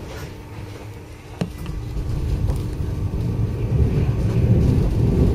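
A tram running along its track, heard from on board: a low rumble with a faint steady hum and a single click a little over a second in, growing louder from about two seconds in as the tram gathers speed.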